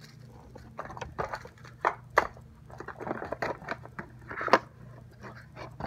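Bubble-wrap bag and cardboard packaging crinkling and rustling as they are handled, with irregular crackles and a couple of sharper snaps about two and four and a half seconds in.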